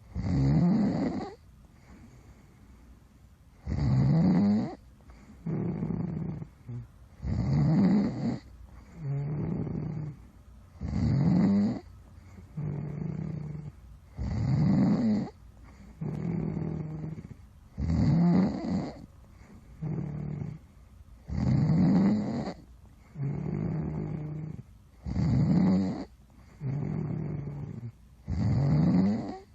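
Snoring in a steady sleep rhythm, about one breath every three and a half seconds. Each breath brings a loud snore that rises in pitch, followed by a softer snore held at one pitch.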